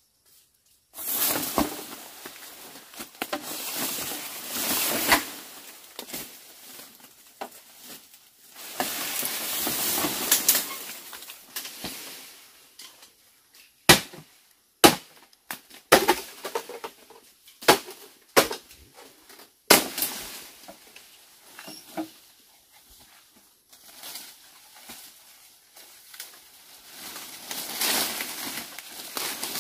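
A felled bamboo pole being pulled and hauled through a bamboo thicket: its leaves and branches rustle and swish in long stretches, with about six sharp cracks in the middle, roughly a second apart.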